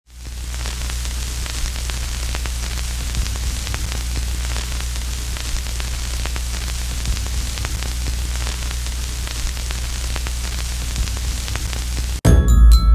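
Steady static hiss with a low hum and scattered faint crackles. It cuts off suddenly near the end as bright glockenspiel-like mallet-percussion music starts.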